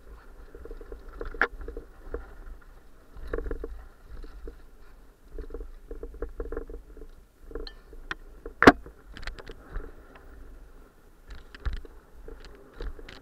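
Mountain bike descending a rough dirt downhill trail: uneven rattling and clattering of the bike over the bumpy ground, with a low rumble and frequent sharp clacks. The loudest is a single hard knock a little under nine seconds in.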